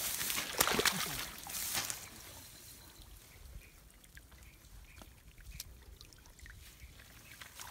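Water splashing in a shallow flooded rice paddy as an arrow-shot snakehead is grabbed by hand, loudest in the first two seconds, then faint drips and trickling.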